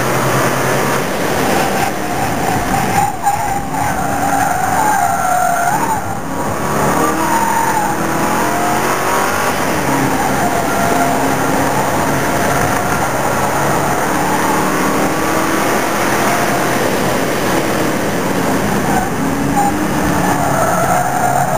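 Mercedes CLK DTM's V8 engine heard from inside the car while lapping a race track hard, its pitch climbing under acceleration and falling off on lifts and downshifts several times.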